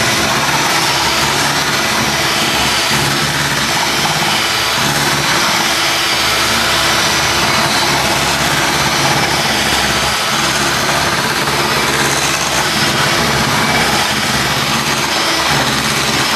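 Electric hand mixer running steadily, its beaters whipping a thick mousse mixture in a glass bowl.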